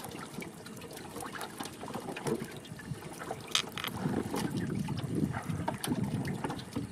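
Scattered wet clicks and ticks from a basin of freshly caught small fish and shrimp, live fish flicking against each other and the basin, over a low rushing noise that grows louder about four seconds in.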